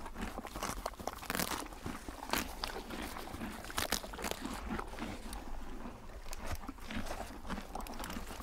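Zebra chewing a mouthful of leafy greens, with irregular crunches several times a second as it bites and grinds.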